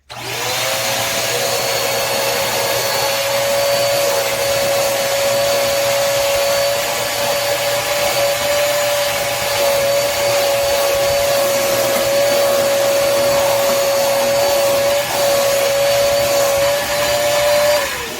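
Koblenz portable wet/dry shop vacuum switched on, its motor spinning up at once to a steady, loud whine. It runs evenly, then is switched off near the end and the whine falls away as the motor spins down.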